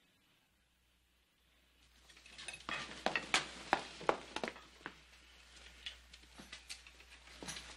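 Boots stepping on a wooden floor: a string of sharp knocks and clicks that begins about two seconds in, is loudest around the fourth second, then thins out.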